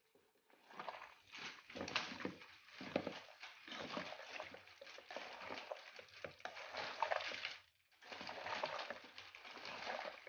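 Raw pork pieces coated in spice masala being mixed and squeezed by hand in a pressure cooker, an irregular squishing of the meat with a brief pause about three-quarters of the way through.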